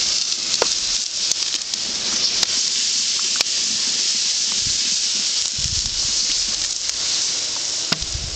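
Steady loud high hiss with scattered crackles from a burning wax-and-cooking-grease buddy burner as it is being put out. There are a few low thumps near the end.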